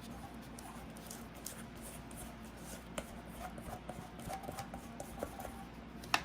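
Faint scraping and soft tapping of a utensil spreading a thick, sticky coconut-walnut batter across a baking pan, with small ticks clustered in the middle and a sharp click about halfway through and another near the end.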